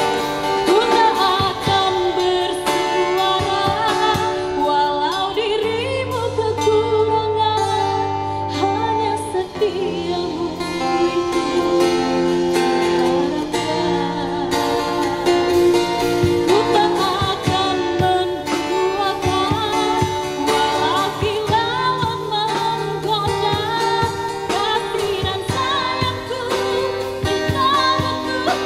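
A woman singing through a microphone, backed by a live band with guitar and a drum kit.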